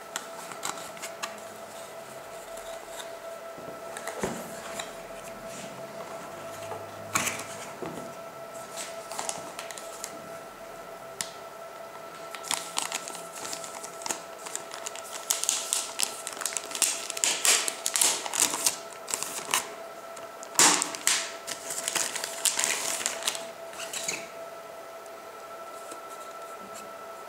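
Unboxing handling noise: a cardboard box and a clear plastic bag being opened and handled, crinkling and crackling in quick clicky clusters, sparse at first and busiest in the second half. A steady high-pitched whine runs underneath.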